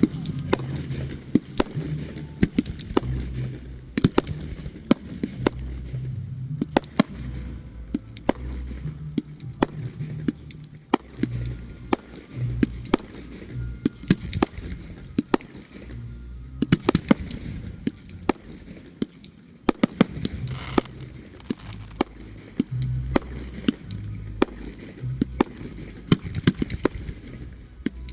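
Fireworks show: a rapid, irregular string of sharp bangs and cracks over a continuous low rumble, with denser volleys in two stretches.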